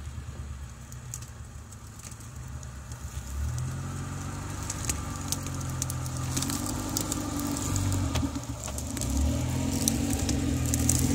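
Suzuki SJ413's engine running at low revs as the 4x4 crawls down a steep slope, growing louder as it comes closer. From about halfway on, twigs and branches crackle and snap under the tyres.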